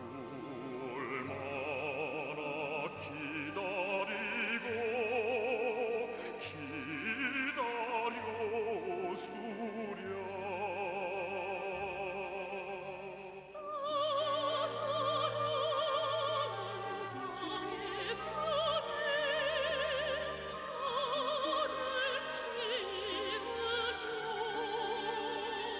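Operatic singing with strong vibrato over an orchestral accompaniment; about halfway through, the voices rise higher and louder.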